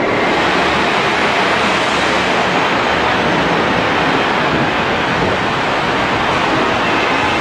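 Steady, loud rushing noise of a bus in motion, heard from on board.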